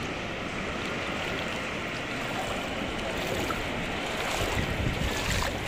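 Steady rushing noise of wind on the microphone with floodwater sloshing, and a few faint splashes or knocks in the second half.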